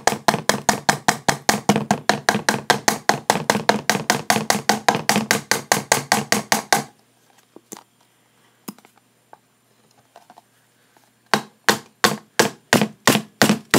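A plastic glue bottle worked hard and fast to force out the last of the glue: a fast, even run of clacks, about five a second, that stops about seven seconds in. A slower run of clacks, two or three a second, starts near the end.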